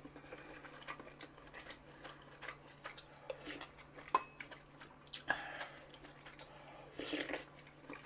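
A person chewing and eating beef intestine hot pot close to the microphone: soft wet mouth sounds and many small clicks, with a few louder clicks about four, five and seven seconds in.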